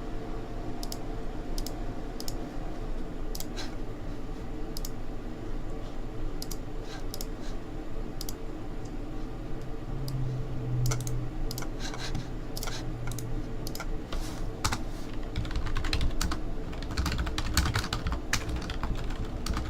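Typing on a computer keyboard: scattered keystrokes at first, then quicker runs of keys in the second half, over a steady low hum.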